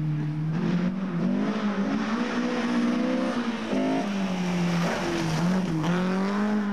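Rally car engine revving hard as the car comes through a bend and passes close by. The pitch climbs, drops sharply about four seconds in as the driver lifts or changes gear, then climbs again as the car accelerates away.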